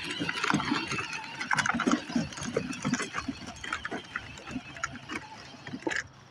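Battery-powered ride-on toy backhoe driving, its plastic gearbox and wheels clattering and rattling unevenly, then stopping suddenly near the end.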